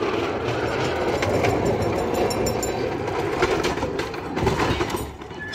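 Small narrow-gauge rail car's wheels rolling along the track: a steady rumble with sharp clicks here and there, easing off near the end.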